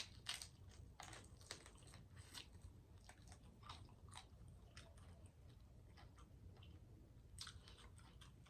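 Faint, close-miked chewing and crunching of fried croaker fish: irregular small crunches and mouth clicks, a little louder right at the start and again near the end.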